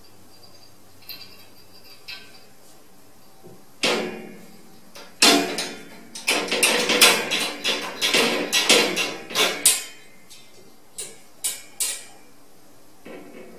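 A metal wire cage door and its sliding bolt latch rattle and clank as a cat paws and pulls at the latch. After a quiet start the clanking comes in about four seconds in, runs thick for several seconds, and ends in three separate sharp clicks near the end.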